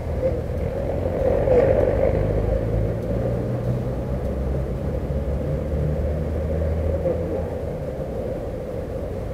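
Low, steady rumble of a vehicle engine running nearby, heard through a police body camera's microphone; it eases after about seven seconds.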